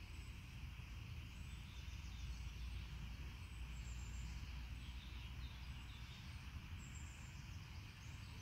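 Quiet outdoor ambience at a lakeside: a steady low rumble with a few faint bird chirps.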